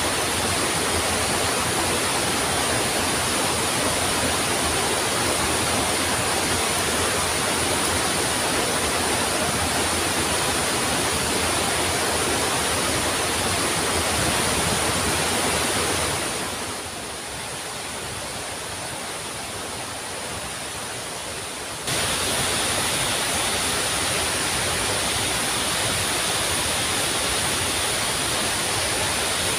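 Waterfall water rushing as a steady, dense noise; about sixteen seconds in it fades to a softer, duller rush, then jumps back to full level about five seconds later.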